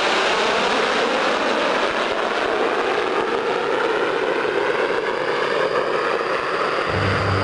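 Jet noise from a Tupolev Tu-22M3 bomber's two Kuznetsov NK-25 turbofans as it flies past and away: a loud, steady rush with slowly sliding sweeps in pitch. Music comes in near the end.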